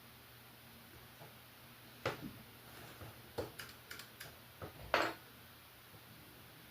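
A run of sharp clicks and knocks over about three seconds, from hands working on a sewing machine's parts, with the loudest knocks at the start and end of the run.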